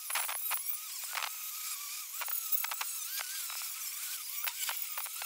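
Angle grinder running against rusty sheet steel on an Opel Manta B's corner pillar. The motor's whine sags and recovers as the disc bites, over a scratchy, crackling rasp of abrasive on metal.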